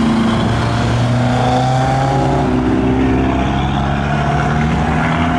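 Several modified car engines running at low, fairly steady revs as cars drive slowly past one after another, their engine notes overlapping.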